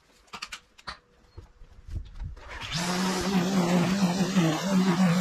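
A few light clicks, then about halfway through a string trimmer starts up and runs steadily, a slightly wavering hum with a hiss as its line cuts long grass.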